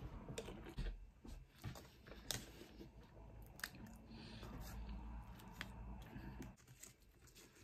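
Quiet, close-up chewing of battered fish and chips, with many small wet mouth clicks and crunches.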